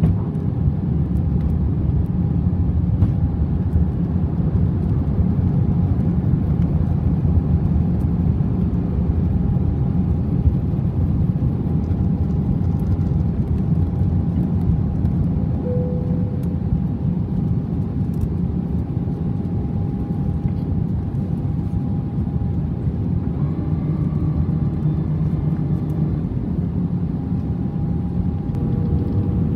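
Steady airliner cabin noise on the descent to land: a low, even rumble of engines and airflow, with a faint steady whine over it.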